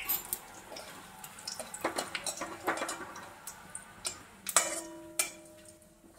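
Whole cumin seeds crackling in hot mustard oil in a kadai with dried red chillies and bay leaves, while a metal spatula stirs and scrapes the pan with irregular clicks and taps. A couple of louder strikes on the pan ring briefly near the end.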